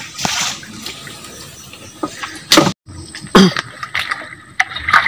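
Water splashing and sloshing, with a few short knocks. The sound cuts out for a moment about halfway through.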